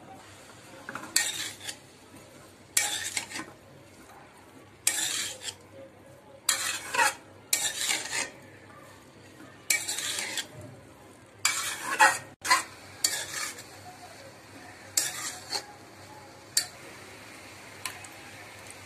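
A spatula stirring and tossing shredded chicken and chopped vegetables in a metal kadai, scraping against the pan in about a dozen short strokes, one every second or two, stopping near the end.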